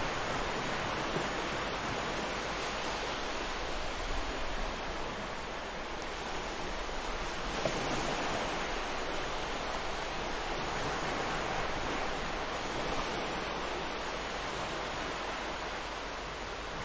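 Ocean surf breaking and washing up a beach: a steady rushing wash of waves that swells slightly about halfway through.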